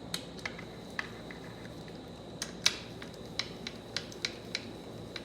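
Light, irregular metal clicks and taps of bolts and a hand tool as bolts are run in loosely, one after another, around a TH400 transmission so the part draws down evenly.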